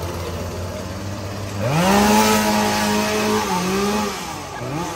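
Gas chainsaw idling, then revved up about a second and a half in, held high for about two seconds with a brief dip, and let back down to idle, with another short rev near the end.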